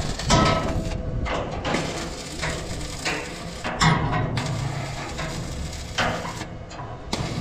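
Stick (arc) welder crackling and sizzling as a rod is run along a cracked bracket on a cargo truck's frame, in runs with short breaks.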